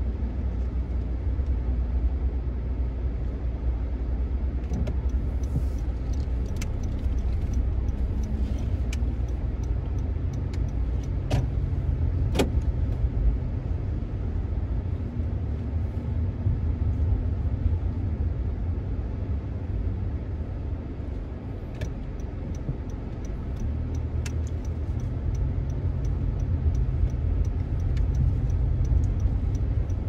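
Car cabin noise while driving slowly: a steady low engine and road rumble, with a few faint sharp clicks.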